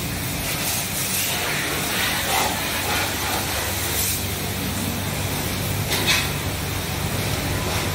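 Pressure-washer spray hissing and splashing against a car's underside, with a steady low hum beneath and a few brief louder splashes.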